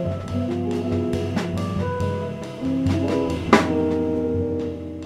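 Jazz trio playing live on electric bass, electric guitar and drum kit, with a loud drum accent about three and a half seconds in.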